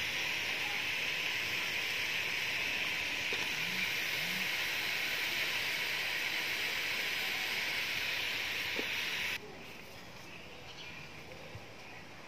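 Steady sizzling of pork and spices frying in a metal wok. It cuts off abruptly about nine seconds in, leaving a much quieter background.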